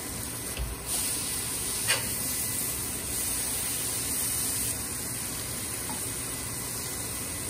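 Smashed beef patties sizzling on a cast iron griddle, a steady hiss that gets louder about a second in as they are flipped with a steel spatula. A single sharp click of the spatula comes about two seconds in.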